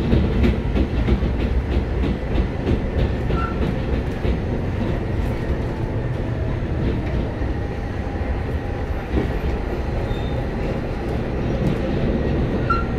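Interior of an Ansaldo-Sirio (AnsaldoBreda) low-floor tram running along the track: a steady rumble of wheels and running gear, with a run of regular clicks through roughly the first half.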